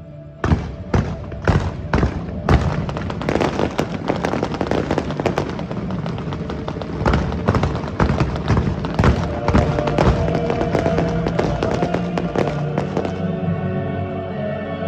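Fireworks display, with a rapid run of sharp bangs starting about half a second in and turning into a dense crackle of bursts. Show music plays underneath throughout.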